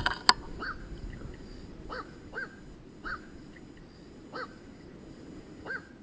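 Black-crowned night herons calling: about six short, hoarse single calls, spaced irregularly, over faint background hiss.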